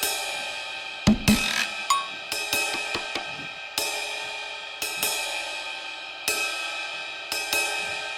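Background music: drum kit with crashing cymbals and hi-hat, strikes every second or so ringing out between hits.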